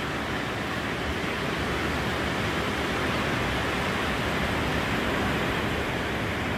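Steady, even rush of surf breaking along the shore, heard from high above the beach so that the waves blend into one continuous wash.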